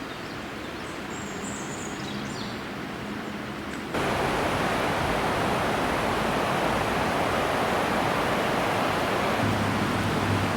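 Waterfall rushing steadily, stepping up abruptly to a louder, fuller rush about four seconds in.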